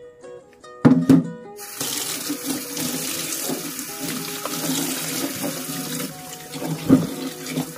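Tap water running into a plastic basin in a stainless steel sink while banana-stem pith is rubbed and splashed clean by hand. Two sharp knocks about a second in, before the water starts, and a louder splash near the end.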